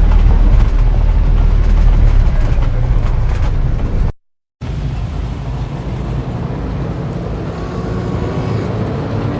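Old-time city street ambience: a heavy low vehicle rumble for about four seconds, then the sound cuts out abruptly for half a second and resumes as a quieter, steady street traffic background with faint pitched tones.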